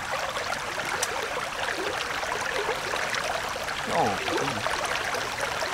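Shallow stream running over rocks: a steady rush and ripple of water. A short falling vocal sound cuts in about four seconds in.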